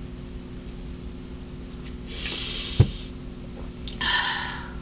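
A person drinking water from a plastic bottle, with a breathy exhale about two seconds in and another near the end, and one sharp thump near the three-second mark. A low steady hum runs underneath.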